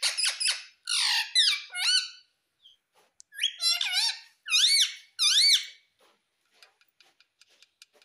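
Indian ringneck parakeet calling: a quick run of shrill squawks and whistled notes, a short pause, then four loud rising calls in a row. Faint clicks follow near the end.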